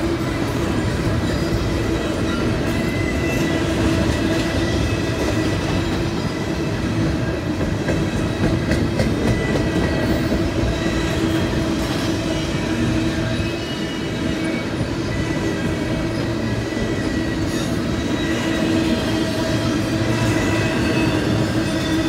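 Double-stack intermodal freight train's well cars rolling steadily past at a grade crossing: continuous wheel rumble and clacking on the rails, with thin steady ringing tones coming and going on top.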